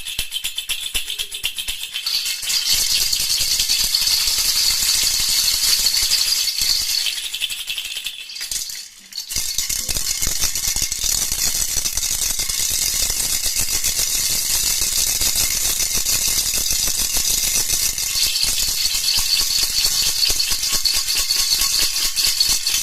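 Baby rattle (jhunjhuna) shaken continuously, a rapid, high jingling rattle, with a brief pause about nine seconds in.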